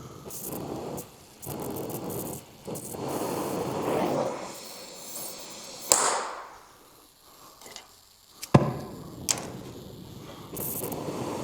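Oxy-fuel gas torch hissing on and off, with a few sharp pops, while its flame is being set up after the oxygen was found to be off.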